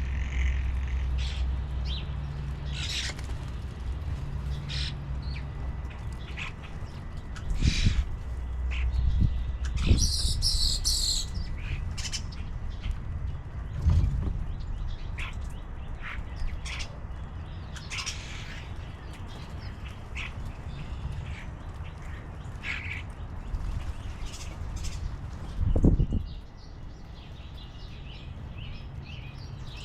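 Wild birds at a feeder calling on and off with short chirps and harsher calls, over a steady low rumble. There are a few dull thumps, the loudest near the end.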